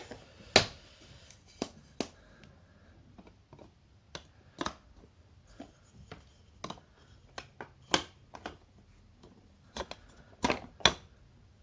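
Toy train track pieces and supports being handled and fitted together: a dozen or so sharp clicks and knocks at irregular intervals, the loudest about half a second in.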